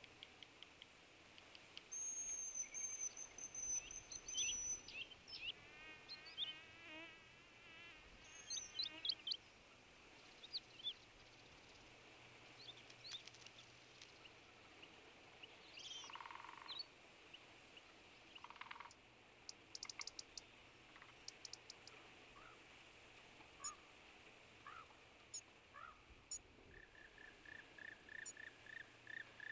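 Quiet outdoor nature ambience of small birds singing and calling: high thin whistles, quick trills and scattered chirps, over a faint steady hum.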